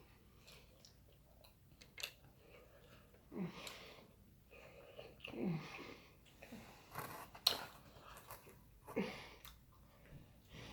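Close-miked chewing with intermittent wet mouth smacks and clicks, a few louder smacks in the middle.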